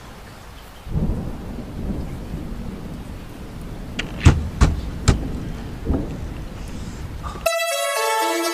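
Rain with thunder: a low rumble swells about a second in, and several sharp cracks of thunder come in quick succession around the middle. Near the end the storm cuts off abruptly and music with ringing, bell-like tones begins.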